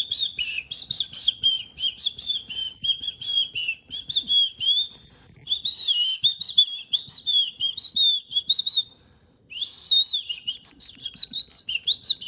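Small bird chirping and warbling in a rapid, nearly continuous high-pitched chatter, with two brief pauses about five and nine seconds in.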